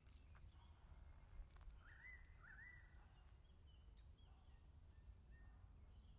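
Near silence: a faint low hum with a few faint chirps about two seconds in, and a couple of faint ticks.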